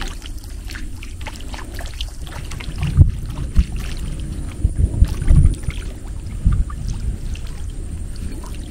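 Water splashing as a lure is drawn across the surface of a creek, with a predatory fish chasing it. Several dull low thumps come about three seconds in and again around five and six and a half seconds in, over a steady low rumble.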